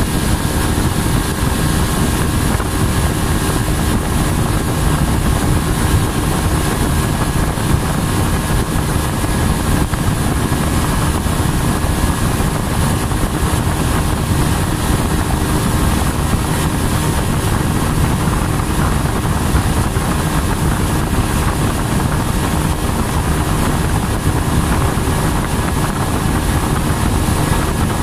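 A motorboat's engine running steadily as the boat travels under way, with wind on the microphone.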